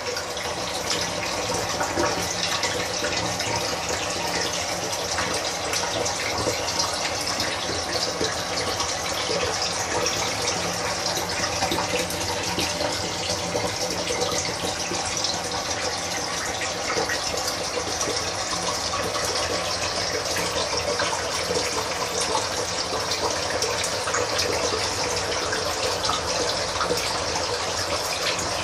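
A thin stream of water pouring steadily into an aquarium, splashing and bubbling at the surface.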